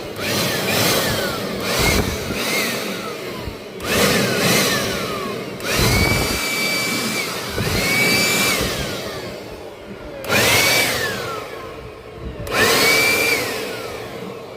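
A small high-speed electric motor, such as a handheld vacuum or electric duster, switched on in about ten short bursts. Each time its whine rises to a steady pitch, holds briefly, then winds down as it is released.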